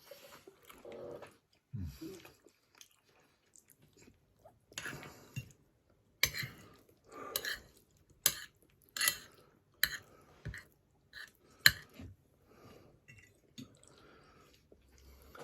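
A person chewing food close to the microphone. About six seconds in comes a run of sharp, loud crunches and clicks that lasts several seconds.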